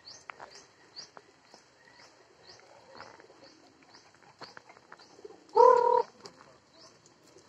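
Birds in a garden: a small bird's short rising chirps repeating two or three times a second, with pigeons nearby. About five and a half seconds in there is one louder, steady half-second tone.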